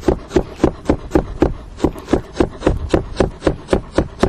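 Chef's knife slicing a raw peeled potato very thin on a plastic cutting board, the blade knocking the board in a steady rhythm of about four strokes a second.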